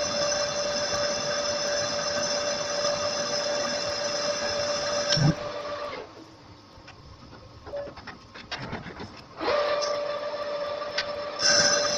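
Manual metal lathe running and boring the centre bore of an aluminum pulley blank, a steady machine whine with a few constant tones. Near the middle the sound drops away to a quiet stretch with a few clicks for about three and a half seconds, then the lathe's running sound comes back.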